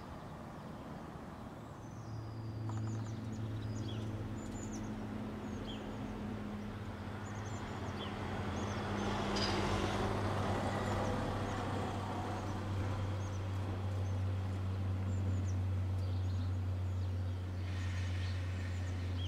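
A steady low engine hum sets in about two seconds in, with a broad rushing swell that peaks about halfway through. Small birds chirp here and there.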